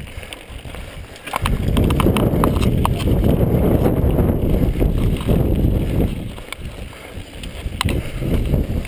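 Wind buffeting the microphone of a camera on a downhill mountain bike, over the rattle of the bike and its tyres on a gravelly dirt trail, with scattered clicks and knocks from loose stones and the frame. The rumble comes in strongly about a second and a half in.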